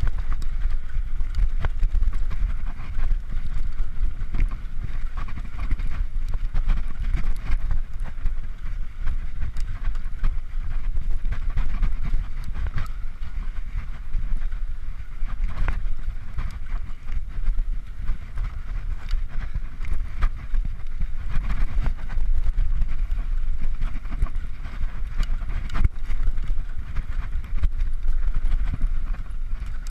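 Mountain bike riding down a bumpy, rutted dirt singletrack, picked up by a camera on the rider or bike: a steady low rumble of tyres and wind with frequent irregular clicks and rattles as the bike hits bumps.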